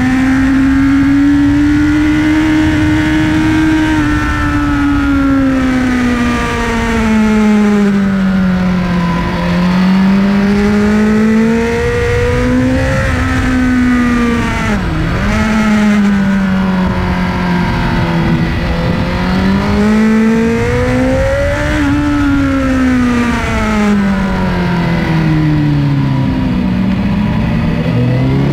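Sport motorcycle engine heard from onboard at track speed, its note rising and falling as the throttle is opened out of corners and rolled off into them. About halfway through the revs drop sharply and pick straight up again.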